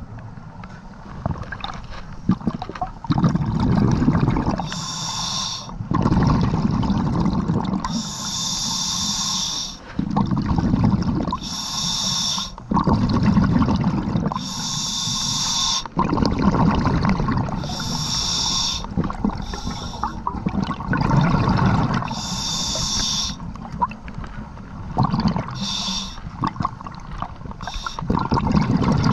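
Scuba diver breathing through a regulator underwater: a short hissing inhale about every three to four seconds, each followed by a longer rush of exhaled bubbles.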